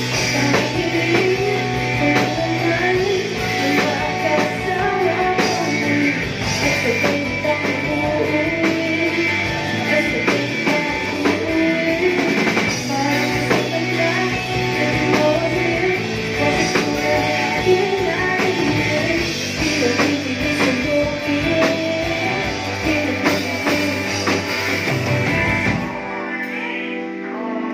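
Live rock band playing: female lead vocals over a Nord Electro 3 keyboard, electric guitar, bass guitar and drum kit. About two seconds before the end, the drums and bass drop out, leaving held keyboard and guitar chords.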